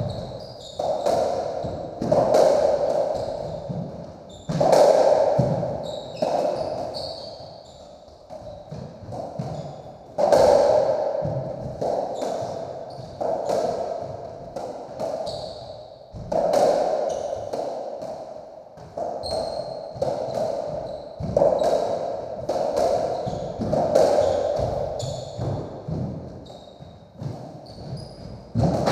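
Racketball rally on a squash court: the ball is struck by the rackets and smacks off the walls and floor about once a second, each hit echoing around the court. Short high squeaks from shoes on the wooden floor come in between the hits.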